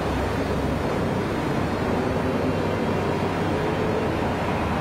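Steady background noise: a constant low rumble and hiss, with no distinct events.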